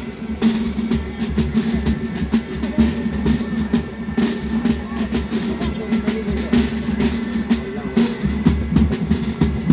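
Military band playing, with sustained low-pitched wind parts over steady drum beats, including bass drum.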